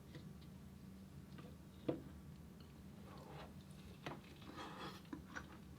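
Faint chewing and mouth sounds of a person eating: a sharp click about two seconds in, then a few softer clicks and wet smacks over a low steady hum.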